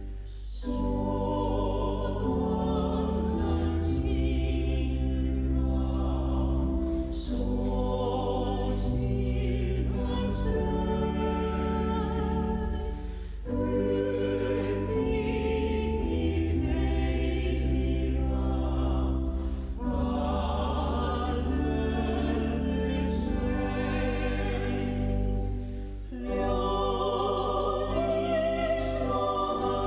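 Choir singing a slow hymn over sustained low organ notes, the phrases broken by short breaths about every six to thirteen seconds.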